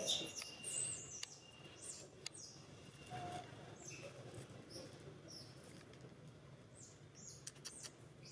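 High-pitched animal squeaks and chirps, several crowded into the first two seconds and then scattered, many falling in pitch, with a few sharp clicks.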